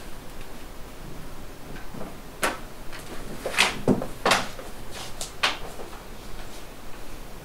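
Several sharp knocks and clicks at irregular intervals over faint room tone, the loudest two about halfway through: household handling noises such as a door being moved or shut.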